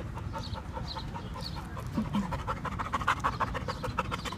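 Dog panting close to the microphone in quick, rhythmic breaths that grow louder about halfway through.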